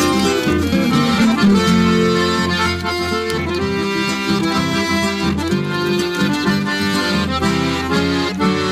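Chamamé played on piano accordion over a guitar accompaniment: an instrumental passage with the accordion carrying the melody and no singing.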